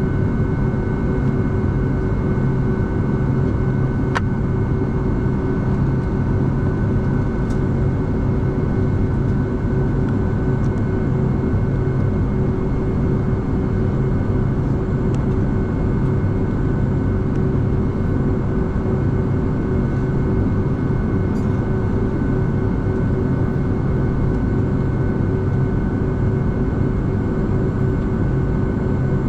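Boeing 757-200's jet engines running at idle thrust on the ground, heard inside the cabin: a steady rumble with a constant whine.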